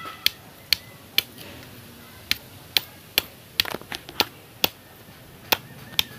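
A bolo knife chopping at a thin bamboo pole propped on a rock: about a dozen sharp knocks at an uneven pace of roughly two a second, with brief pauses between runs of strokes.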